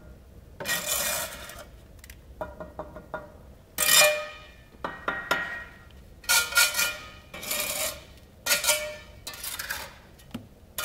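A steel brick trowel scraping mortar and clinking against bricks in a run of short scrapes, some with a metallic ring, the loudest about four seconds in, as cut skewback bricks are bedded into an arch springing.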